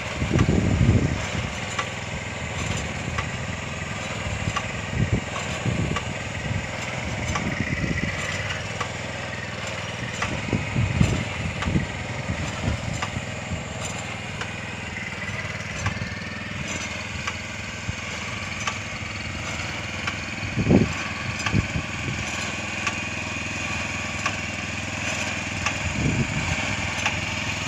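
Small engine of a riding vegetable transplanter running steadily as it plants along the bed, with a few brief low thuds.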